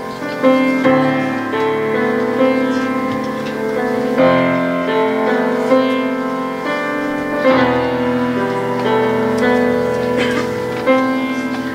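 A grand piano playing a slow, gentle piece, with new notes struck about once a second over held low notes.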